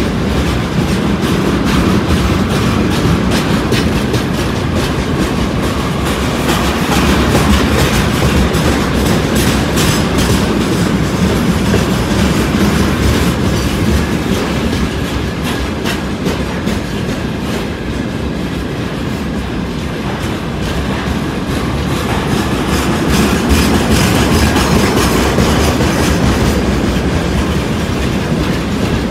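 Freight train of railway tank cars rolling past, the wheels clattering over the rail joints in a steady stream of clicks.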